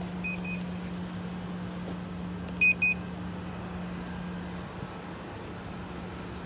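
Electronic beeper sounding two quick double beeps: a faint pair just after the start and a loud pair about two and a half seconds in. A steady low hum runs underneath and fades out a little after halfway.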